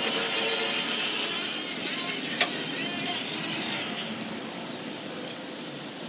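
Power tool grinding or wire-brushing steel: a harsh, continuous hiss with a motor whine underneath, fading near the end.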